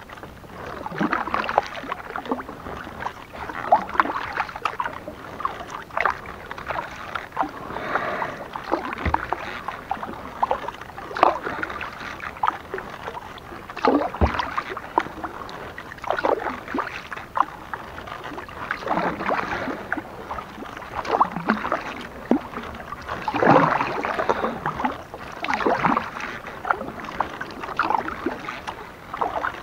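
Kayak paddle blades dipping into and pulling through the water, splashing in a steady rhythm of about one stroke every two seconds, with small water clicks between strokes. A single low knock comes about halfway through.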